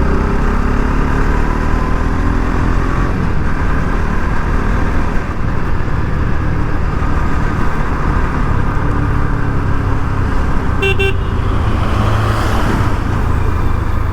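Bajaj Pulsar RS 200's single-cylinder engine running steadily on the move, with constant wind and road rush. About three-quarters of the way through, a vehicle horn gives one short beep.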